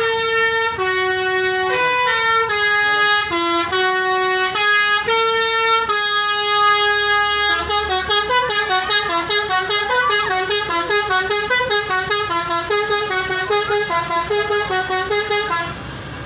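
Bus's multi-tone basuri telolet horn playing a melody: slow stepped notes for about seven seconds, then a quick run of short notes, stopping shortly before the end.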